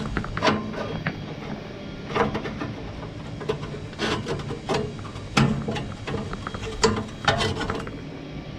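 Irregular metal clanks, knocks and scraping as a damaged bar is worked loose and pulled out from inside a Weber Genesis gas grill's firebox.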